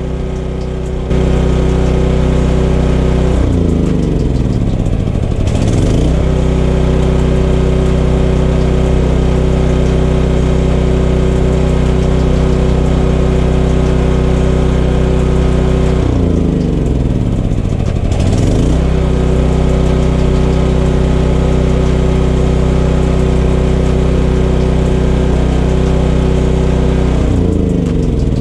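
Champion 9000-watt generator's single-cylinder engine running. It gets louder about a second in, and its speed dips and recovers in a slow surge three times, roughly every twelve seconds.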